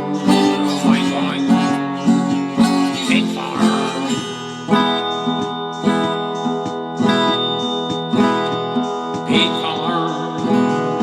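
Instrumental break of a country-style song: acoustic guitar strumming a steady rhythm.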